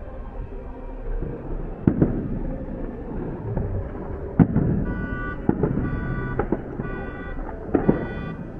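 Aerial fireworks going off, with sharp bangs every two to three seconds over a continuous rumble of bursts. From about five seconds in, a repeating beeping tone pulses along with them.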